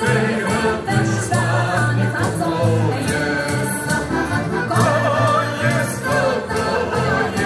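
Several heligonkas (diatonic button accordions) play a lively Slovak folk song with bass notes on the beat and singing over them. Regular jingle-and-cymbal strokes from bumbas poles keep the beat.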